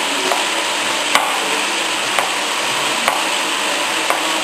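Knife chopping on a cutting board: sharp strokes about one a second, over a steady hiss.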